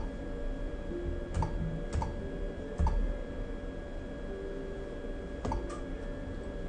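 Buttons on an ultrasound machine's control panel being clicked, about six sharp separate clicks with a close pair near the end, as the scanner is switched from 2D to 4D imaging. A steady high tone runs underneath.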